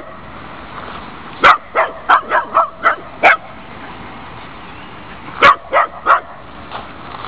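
Small dog barking in play: a quick run of about seven sharp barks, a pause, then three more.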